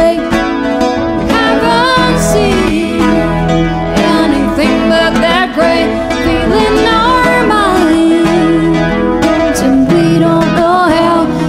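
Music: acoustic guitar playing under wordless singing that slides up and down in pitch.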